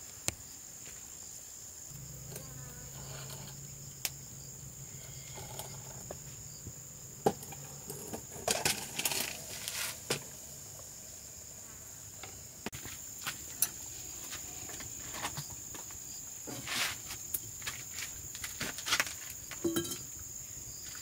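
Insects droning in a steady high band, with scattered sharp clicks and short bursts of rustling and knocking over it. A faint low hum runs from about two seconds in to about eight.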